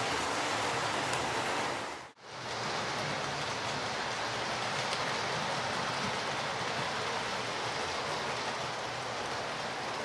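Model trains running on the layout's track, a steady even rushing rattle of wheels and motors on the rails. It cuts out for a moment about two seconds in and then carries on as before.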